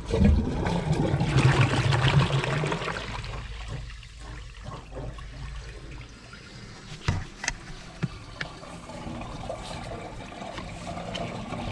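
A bucket of water sent down an old clay drain pipe, rushing loudly for about three seconds and then dying away to a trickle. It is a flow test on a drain that still runs but has debris sitting in it.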